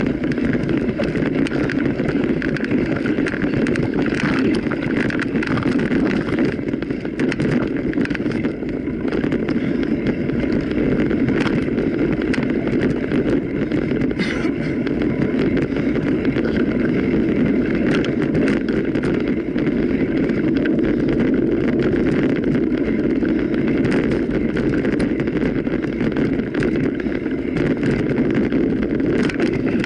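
Mountain bike ridden at speed over a trail: steady rolling and wind noise on the microphone, with frequent small clicks and rattles.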